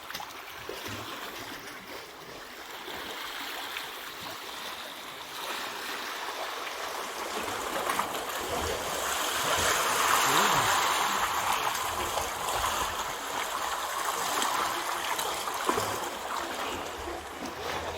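Water rushing and gurgling among shore rocks, swelling to its loudest about ten seconds in and then easing off.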